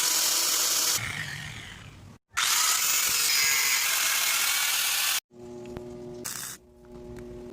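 Circular saw running under load in two loud bursts, spinning down after the first. It then settles into a quieter, steady motor hum.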